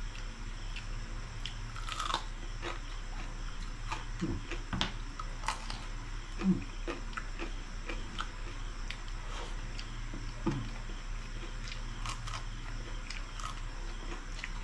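Close-up chewing and biting of crispy pata, deep-fried pork knuckle, its crackling skin crunching in irregular bites with wet mouth sounds.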